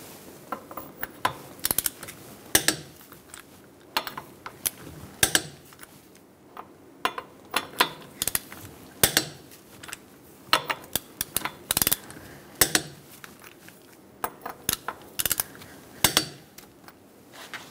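Torque wrench with a 21 mm socket tightening lug nuts on a steel wheel to 76 ft-lb: sharp metallic clicks and clinks in small clusters every one to three seconds, as the socket goes onto each nut and the wrench clicks off at the set torque.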